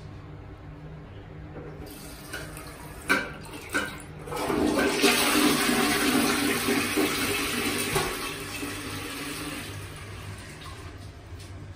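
Ceramic toilet with a push-button flush: two sharp clicks, then a loud rush of water swirling through the bowl for about four seconds, tapering off gradually.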